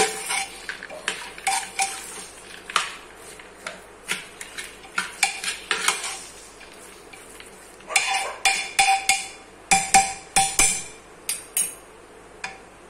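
A spoon stirring and scraping inside a metal pressure cooker, mixing soaked chana dal with minced chicken and spices. It makes irregular clinks and knocks against the pot's sides, some of them ringing. The clinks come faster about eight seconds in and stop a little before the end.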